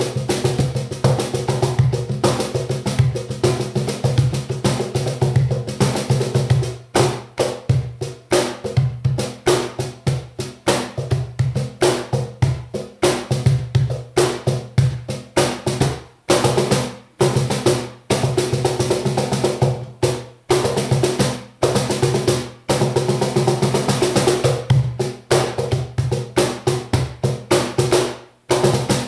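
NM Cajon Workshop wooden cajon played as a fast, dense groove of strikes. Deep bass hits ring low under sharper high slaps, with a few brief pauses between phrases.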